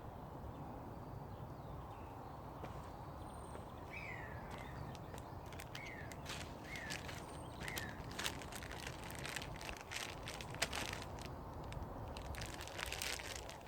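Woodland ambience with a steady low rumble. A bird gives about five short falling chirps a few seconds in. Footsteps then crackle through twigs and leaf litter, with sharp snaps until the end.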